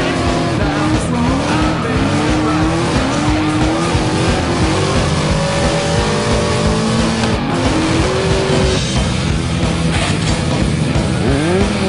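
Car engine revving hard, its pitch climbing, dropping and climbing again as it runs up through the gears, with tyre squeal from drifting, over background music.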